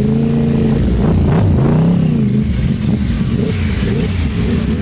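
Superbike engines revving, their pitch falling and rising again between about one and two and a half seconds in.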